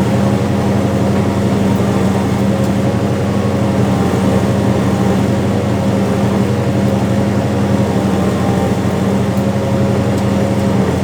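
Farm tractor engine running steadily under load while pulling a planter, a constant even drone.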